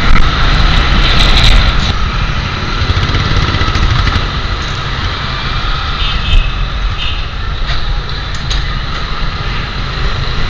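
Motorcycle engine running, heard from the camera bike with wind rumble on the microphone. It quietens about two seconds in as the bike slows and pulls up, then runs on low.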